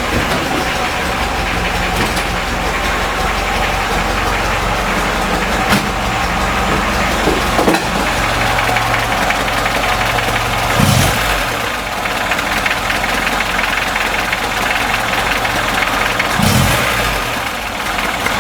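VAZ-21011 1.3-litre four-cylinder carburettor engine of a VAZ-2106 running with an extraneous clattering noise. It is misfiring: the owner reports that one cylinder is not working.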